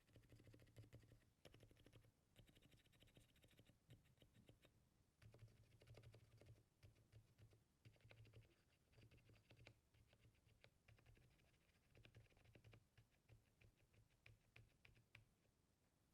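Faint, rapid typing on a full-size Monsgeek M5 QMK aluminium keyboard fitted with lubed Akko Fairy Silent switches and FL CMMK V3 stabilizers. The keystrokes come in quick runs with short pauses and sound muted, as the silenced switches and sound-dampening intend.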